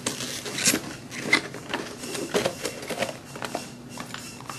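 Plastic and cardboard packaging being handled: the clear plastic insert tray is pulled out of the cardboard box, giving an irregular run of small clicks, taps and rustles.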